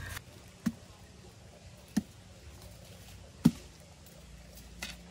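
Machete chopping: four sharp, separate strikes about a second and a half apart.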